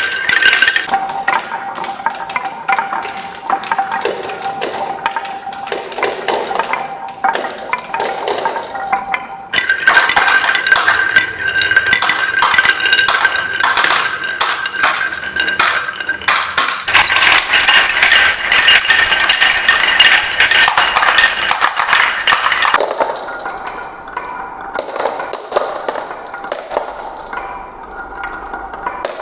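Marbles rolling and clattering down a wooden marble run: a steady rolling hum with many quick clicks and clacks as they hit the track and each other, thinning out and getting softer near the end.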